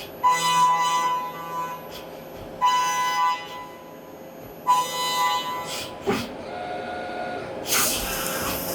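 Brother SPEEDIO U500Xd1 five-axis machining centre: its motors whine in three short bursts as the machine moves. A click follows, then a sudden hissing rush about a second before the end that runs on steadily as a ø12 drill starts cutting into aluminium.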